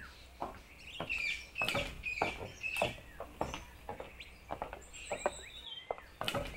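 Faint bird chirps and short falling whistles, mixed with scattered clicks and knocks.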